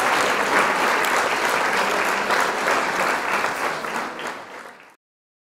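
Crowd applauding, fading out and stopping about five seconds in.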